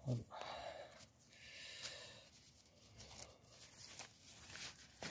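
Faint rustling and crinkling handling noises, with a few soft clicks.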